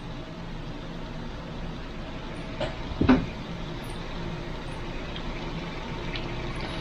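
Battered chicken strips frying in hot oil, a steady sizzle, with a sharp metal clunk about three seconds in from the fryer's basket or lid.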